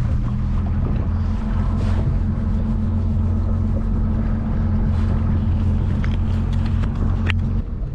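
Motorboat engine running steadily with a constant low hum. Its note eases off just before the end.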